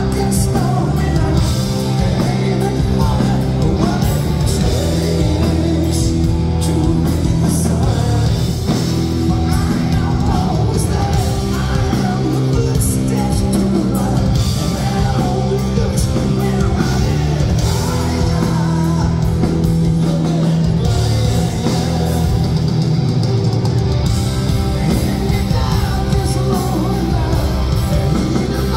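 Live power metal band playing at full volume: distorted electric guitars, drums, keyboards and sung lead vocals, heard from within the crowd.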